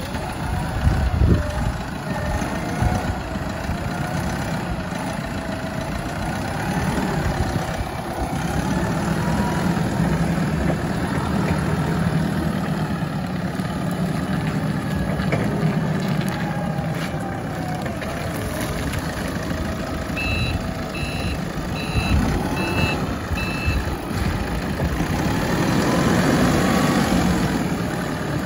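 Cat DP40N1 forklift's diesel engine running as the forklift drives and manoeuvres, its speed rising and falling. About two-thirds of the way through, the reverse alarm beeps five times, about one beep a second.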